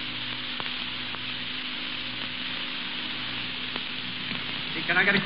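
Steady hiss and crackle of a 1936 radio broadcast recording, with a few faint clicks and a low hum: the surface noise of an aged old-time radio recording, with no voices or music.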